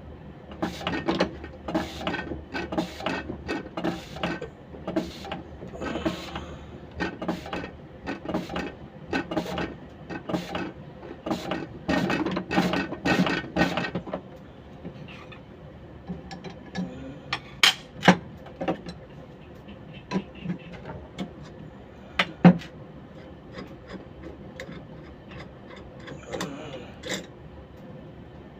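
Irregular mechanical clicking and clattering, like metal tools and parts being handled. The clicks come thick and fast for about the first half, then turn sparse, with a few single sharp clicks.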